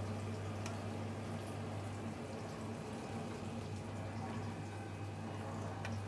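Miele G5500 SCI built-in dishwasher running a wash cycle: a steady low hum from its pump with water swishing inside.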